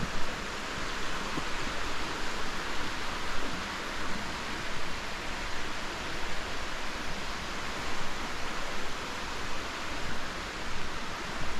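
Steady rush of flowing river water, an even, unbroken hiss.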